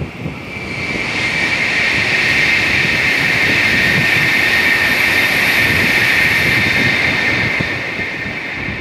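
Tokaido Shinkansen N700-series high-speed train passing by: a loud rushing roar of wheels and air that builds over a second or two, holds, then fades as the train runs away up the line.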